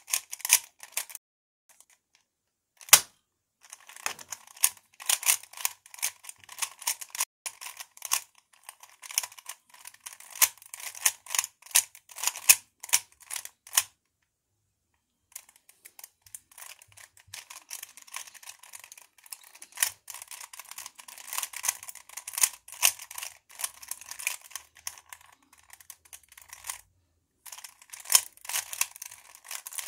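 Plastic 3x3 Rubik's cube being turned by hand: rapid trains of sharp clicks and clacks as the layers rotate, in bursts broken by a few short pauses, one near the start with a single loud click and one about halfway.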